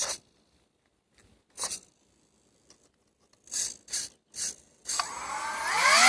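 A few short handling noises, then from about five seconds in the 3D-printed RC car's electric motor spins up with a whine rising in pitch as throttle is applied.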